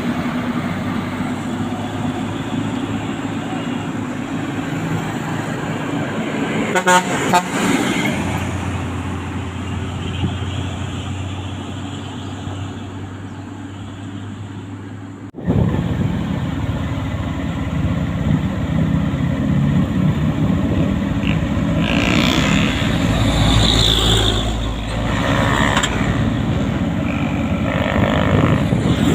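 Truck engine running on the road, with horn toots. The sound breaks off sharply about halfway through and then resumes.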